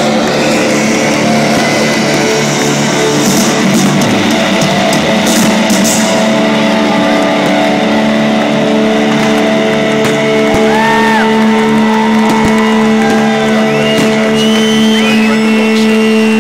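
Loud live rock music, with long held electric guitar notes ringing on.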